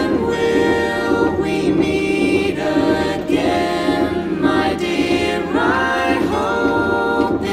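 Background music: a song with long, held sung notes that glide from one pitch to the next.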